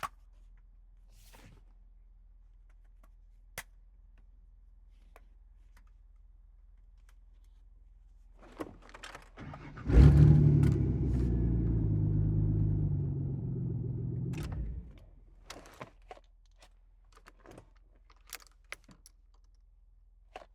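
2004 Ford Explorer being started: a few clicks and key jingling, then about ten seconds in the engine fires with a brief flare of revs, idles steadily for about five seconds and is switched off, followed by more scattered clicks.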